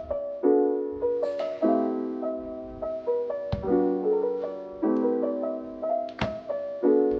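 Background piano music: a calm melody of struck notes with chords at an even pace.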